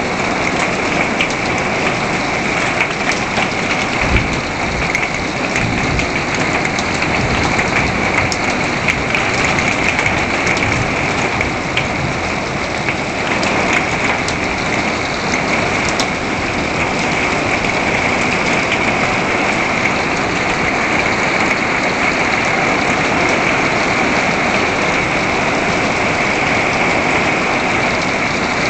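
Heavy rain pouring steadily onto a wooden deck and plastic buckets during a thunderstorm, with a low rumble of thunder about four to six seconds in.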